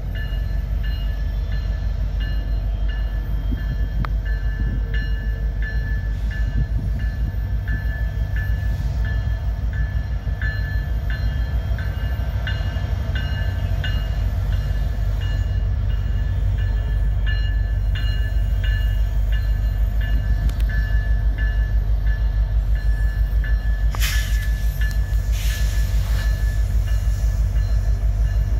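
Diesel locomotives of a freight train, a Canadian Pacific unit and a Kansas City Southern-painted unit, rumble past at close range, growing gradually louder as they approach, with repeated clicks from the wheels and rails. A brief burst of noise comes near the end.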